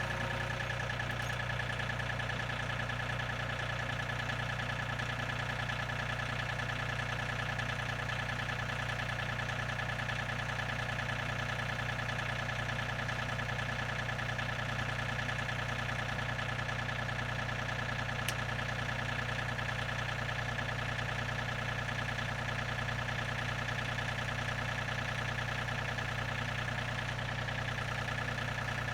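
An engine running steadily at constant speed, with a steady high whine above it.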